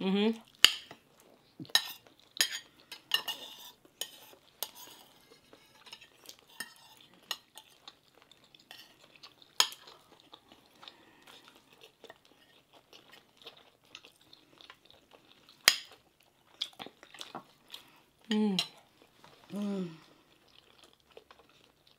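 Metal forks and spoons clinking and scraping against ceramic plates and glass bowls in scattered sharp clicks while food is eaten. Near the end there are two brief hums from a voice, falling in pitch.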